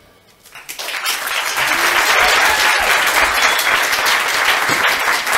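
Audience applause breaks out about a second in, just after a children's song ends, and carries on steadily as dense hand clapping.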